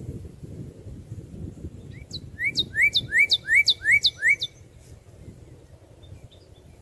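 Northern cardinal singing a quick run of about seven whistled phrases, each a short rising slur followed by a sharp downward sweep, about three a second. The run starts about two seconds in and stops just past the middle.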